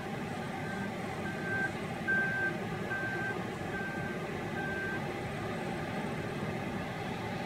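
Caterpillar 972M wheel loader reversing: its back-up alarm beeps evenly, about five beeps every four seconds, over the steady running of its diesel engine. The beeping stops about five seconds in, while the engine keeps running.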